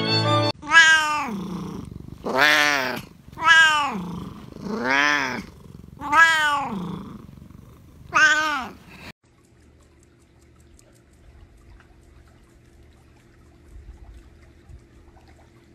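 A domestic cat meowing six times in a row, each a long, loud call that rises and falls in pitch. The calls stop about nine seconds in, leaving only a faint steady hum.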